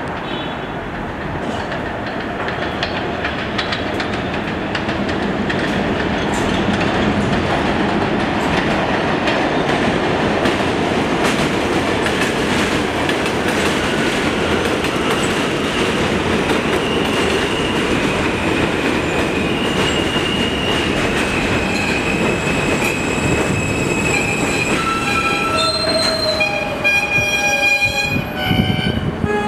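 R160A subway train pulling into an elevated station: the wheels rumble and clatter on the track as it comes in, loudest from about six seconds in. In the second half, electric motor whines rise and fall as it brakes, settling into several stepped tones just before it stops near the end.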